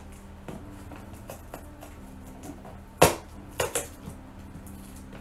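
Cardboard advent calendar door being worked open by hand: quiet handling, then a sharp snap about three seconds in and two lighter knocks just after.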